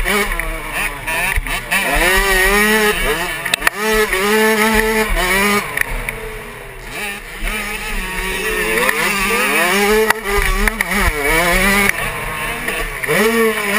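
Suzuki 85cc two-stroke motocross engine racing under hard throttle, its pitch climbing, holding, then dropping again and again as the rider shifts gears and rolls on and off the throttle.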